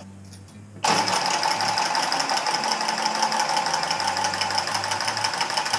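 Cordless copper tubing cutter starting up about a second in and running with a steady whine as it spins around a copper pipe, cutting it.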